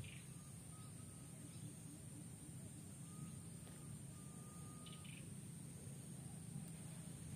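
Quiet outdoor background: a steady low hum and a constant high-pitched tone, with a few faint short chirps and thin whistles.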